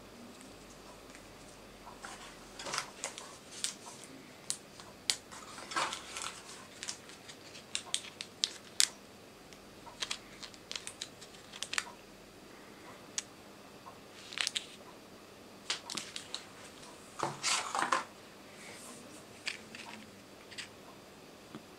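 Plastic packaging crinkling, with sharp clicks and taps, as a USB cable and other small plastic-wrapped phone accessories are handled and set down on a table. The sounds come in irregular bursts, the loudest a crinkly flurry near the end.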